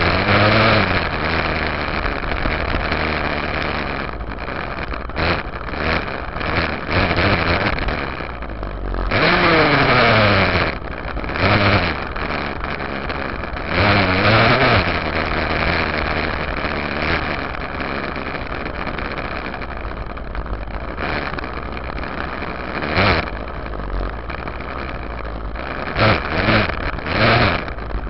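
Dirt bike engine revving up and down as it is ridden along a trail, several throttle bursts rising and falling in pitch, heard close up from the rear fender.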